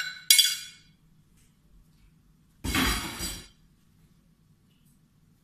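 Metal spoon clinking against a glass serving platter: a short click, then a sharp ringing clink that fades within half a second. About two and a half seconds in comes a duller clatter lasting under a second.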